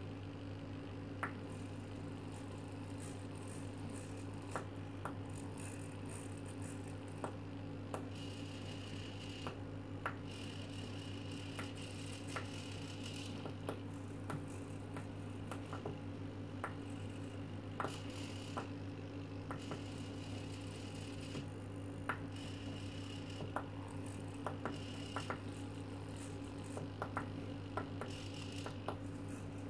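Two micro hobby servos whirring in short and longer stretches as they turn, with sharp clicks of tactile pushbuttons being pressed, over a steady low hum.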